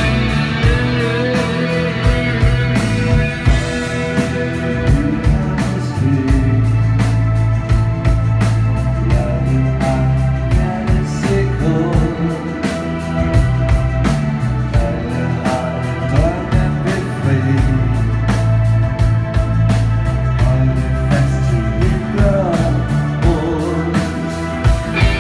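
Live rock band playing loudly: electric guitars, drums and keyboard over a heavy bass, with a steady drumbeat.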